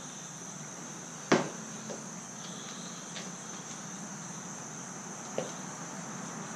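Steady high-pitched chorus of insects outdoors. One sharp knock sounds about a second and a half in, and a faint click comes near the end.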